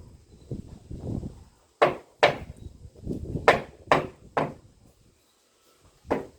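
Several sharp, irregular knocks of a hand tool striking wood, with a short pause before the last one near the end.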